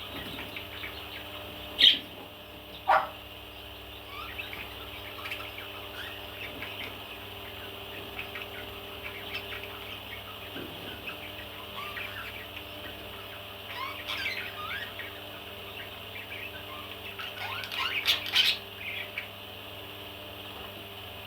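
Parrot chirping and calling. There is a loud high call about two seconds in, a call sliding down in pitch a second later, and a burst of loud calls near the end, over a steady low hum.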